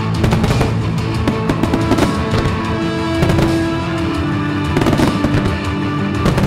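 Music playing loudly with fireworks shells bursting in quick succession over it: a starmine barrage fired to music.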